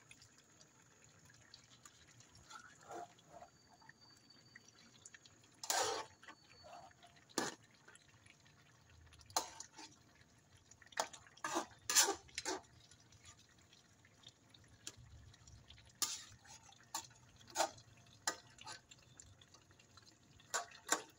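Pork-hock humba sauce simmering in a metal pan, bubbling with irregular short wet pops, several in quick succession around the middle.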